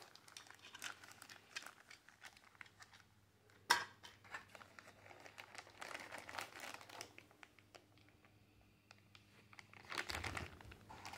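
Faint crinkling of plastic bags being handled: a small bagged lock is moved aside and a pistol in a thin blue plastic bag is lifted and handled. There is one sharp tap about a third of the way in, and the crinkling grows busier again near the end.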